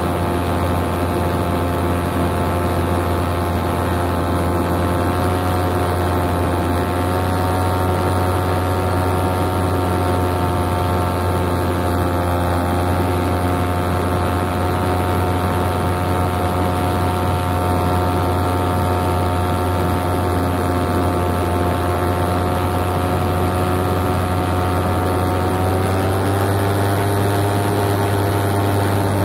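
Paramotor engine and propeller running steadily in flight, an even pitched drone that rises slightly in pitch near the end as the throttle is opened a little.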